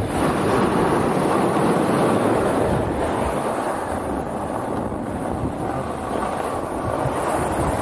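Snowboard sliding and carving over groomed corduroy snow, a steady rushing noise, mixed with wind buffeting the action camera's microphone at speed.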